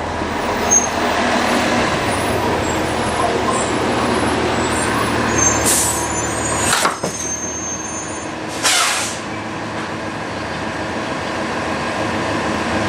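Pneumatic scissor hinge prop cycled by its solenoid valve and air cylinder: short hisses of compressed air venting through the mufflers about six and nine seconds in, with a sharp clack near seven seconds as the mechanism moves, over a steady mechanical hum that cuts off at the clack.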